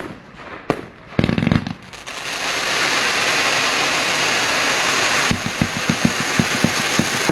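Consumer fireworks going off. A few sharp pops come first, then a heavy boom a little over a second in. From about two seconds a dense continuous hiss sets in, with a rapid run of bangs over it in the last two seconds.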